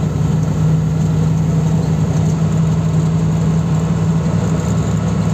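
Truck's diesel engine running steadily on the move, heard from inside the cab as a constant low hum.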